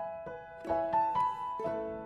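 Background music: a slow melody of single struck notes, each left to ring and fade.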